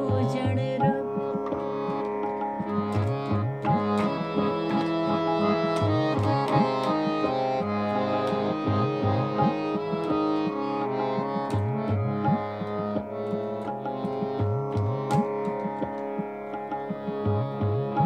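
Instrumental interlude between sung lines: sustained harmonium melody notes over tabla, whose bass-drum strokes glide up in pitch.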